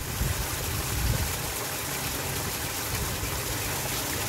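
Rainwater runoff pouring off a street gutter into a metal storm-drain grate: a steady rushing, splashing flow.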